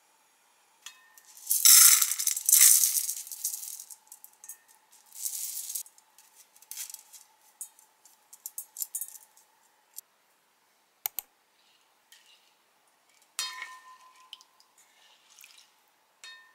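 Washed rice tipped from a metal strainer into a rice cooker's inner pot, the grains rattling and pouring in two loud rushes, followed by scattered clicks and taps of utensils against the pot.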